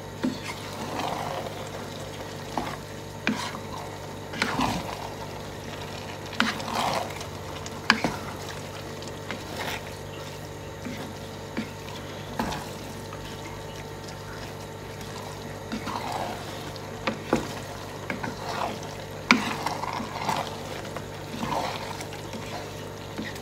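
Wooden spatula stirring and tossing sauced noodles in a nonstick pot on the stove: soft scrapes against the pot and wet squelches at irregular intervals, over a steady low hum.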